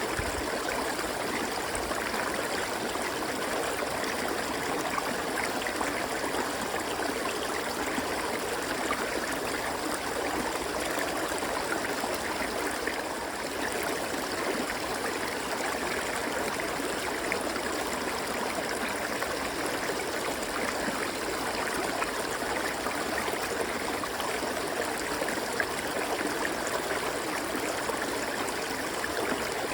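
River water flowing and rushing over rocks, a steady even stream sound.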